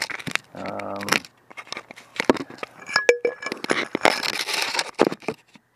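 Camera being handled and set down on gravel: irregular knocks, clicks and scraping of the camera against stones and grit, with a brief ringing clink about three seconds in.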